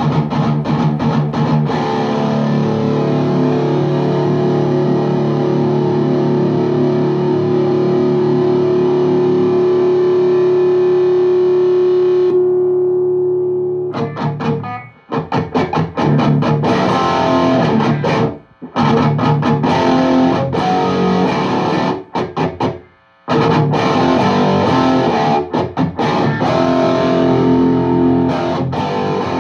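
High-gain distorted electric guitar through a VHT Deliverance D60 valve amp, miked at a 4x12 cabinet. A chord is held and left ringing for about twelve seconds, then comes tight, dry chugging riffing with several abrupt stops.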